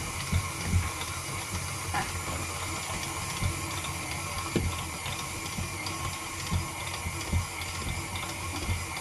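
KitchenAid stand mixer running, its attachment kneading pizza dough in the steel bowl: a steady motor hum with irregular soft thumps as the dough mass knocks around the bowl.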